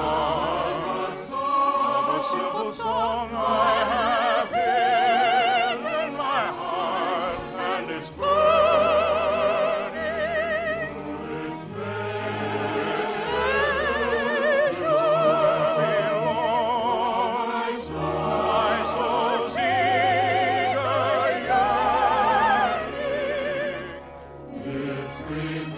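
Operetta music: operatic singing with a wide vibrato over a radio orchestra, from a 1951 broadcast recording.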